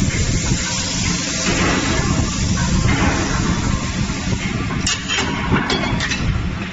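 Steady forge-shop machinery noise: a loud rumble with hiss, and a few sharp metallic clicks near the end.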